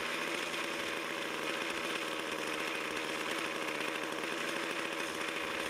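Two-stroke string trimmer engine idling steadily. The idle is set just high enough that the clutch begins to turn the line head slowly.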